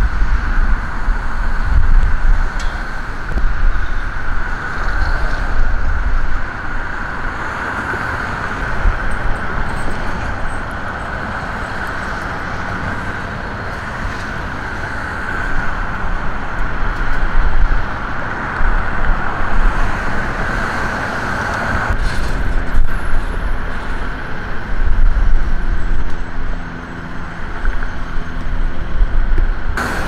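Steady road traffic noise from passing vehicles, with gusts of wind rumbling on the microphone.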